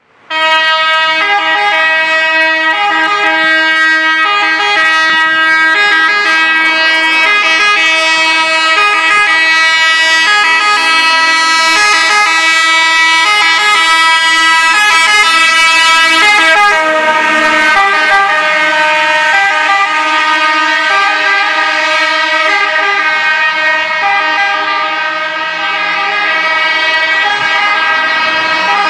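Italian fire engine's pneumatic two-tone siren, the air horns of an Iveco City Eurofire pump tender alternating steadily between a high and a low note. About halfway through the truck passes close, with a rush of engine and road noise and a slight drop in the siren's pitch, and then it carries on as the truck drives away.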